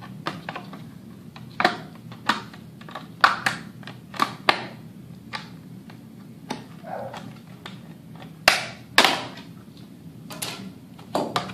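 Scissors snipping the excess edge off a thin plastic armour shin piece: a series of sharp, irregular clicks and snaps, with two louder snaps together about three-quarters of the way through.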